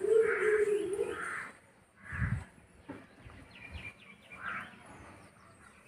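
Birds calling: a few short, harsh calls in the first half and one more a little past four seconds, with faint small chirps in between. A steady low hum runs through the first second and a half.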